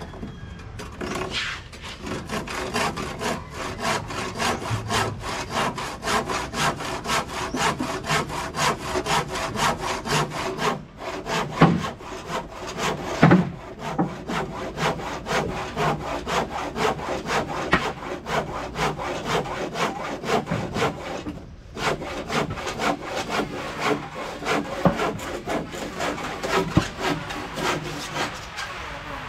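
A hand saw cutting through wood in quick, even back-and-forth strokes, stopping briefly twice, with a few sharper knocks about a third of the way in.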